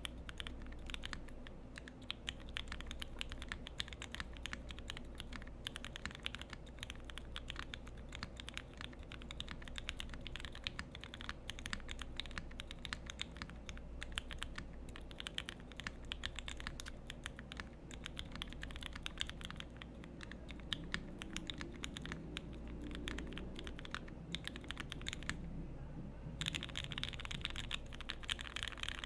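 Continuous fast typing on a Parallel Portal 65% custom mechanical keyboard with lubed and filmed Gateron Ink Black v2 linear switches, GMK keycaps and an FR4 plate. The keystrokes come in a dense, steady stream, with a short pause near the end.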